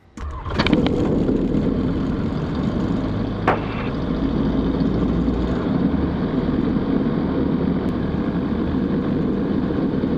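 The Zenith STOL CH 701's 100-hp Rotax 912ULS engine starting: it catches within the first second and settles into a steady idle, the propeller turning. A short sharp tick is heard about three and a half seconds in.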